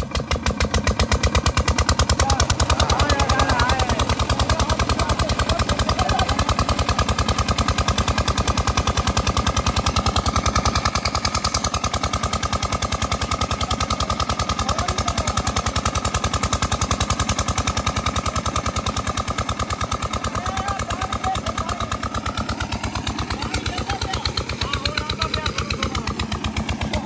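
Single-cylinder Petter-type diesel engine driving a tube-well water pump, running steadily with fast, even, loud exhaust beats.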